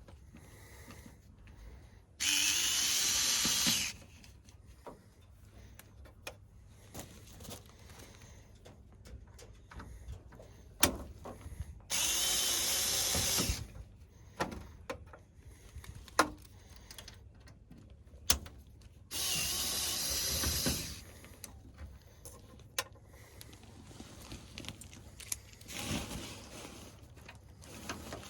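Cordless power driver running screws out of an air-conditioner's cover panel in three runs of about a second and a half each, with a shorter fourth run near the end. Clicks and handling noise come between the runs.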